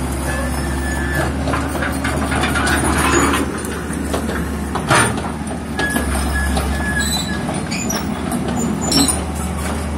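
Takeuchi 045 mini excavator's diesel engine running with a steady low hum while the machine works, with brief high squeals twice and sharp metallic knocks about five and nine seconds in.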